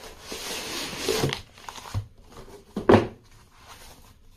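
A corrugated cardboard box being opened by hand, with cardboard and foam packing rustling and sliding for about the first second and a half. There is a soft knock about two seconds in and a louder thump just before three seconds.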